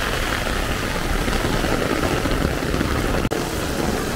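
Heavy rain falling steadily on an umbrella overhead, with the low, steady rumble of a vehicle engine in the street underneath.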